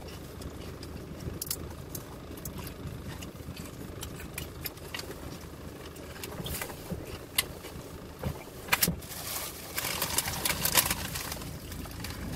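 Crinkling and rustling of a clear plastic bag handled around a sandwich, with scattered sharp crackles that come thicker toward the end, over a low steady hum inside a car.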